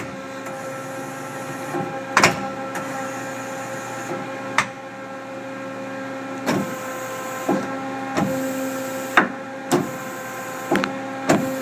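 Programmable hydraulic tailstock of a 1997 Mazak Quick Turn 20 CNC lathe moving its body and quill. A steady machine hum runs under a string of sharp clicks and clunks, about nine, spaced unevenly.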